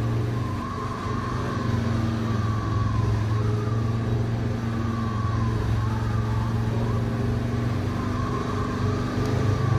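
Vehicle engine running steadily, a low drone with a whine above it that wavers up and down, as the RC Land Rover Defender 110 scale crawler drives over gravel.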